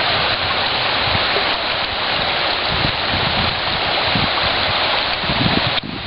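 Shallow mountain river running over a rocky, boulder-strewn bed: a steady rushing of water, with a brief drop in level near the end.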